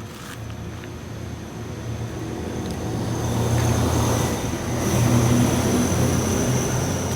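A motor's steady low hum with a thin high whine over it, getting louder through the middle and easing slightly near the end.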